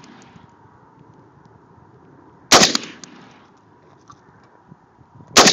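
Two single shots from an FN SCAR 16 rifle firing .223, about three seconds apart, each trailing off briefly after the crack.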